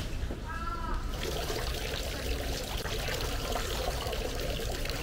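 Water pouring from the spouts of a shrine's bronze temizuya purification basin and splashing over hands rinsed under it, running steadily from about a second in.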